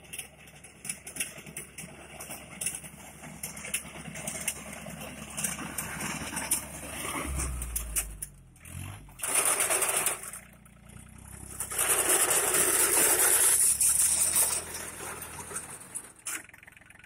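Compact tractor's engine running as it drives its front-mounted paddy reaper through standing rice, passing close by. The engine hum swells about halfway through, and two long loud stretches of rushing noise follow.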